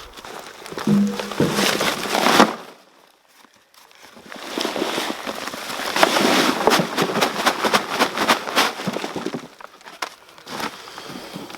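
Hands digging and rummaging through dry compost in a potato container, the soil crackling and rustling as it is scooped and tipped, with a short pause about three seconds in.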